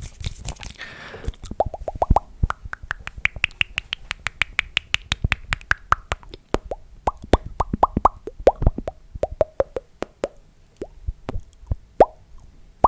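Close-miked ASMR mouth sounds: rapid wet tongue and lip pops, each with a short ringing pitch. In the first run the pitch climbs and then falls back; a lower run follows, and scattered single clicks come near the end.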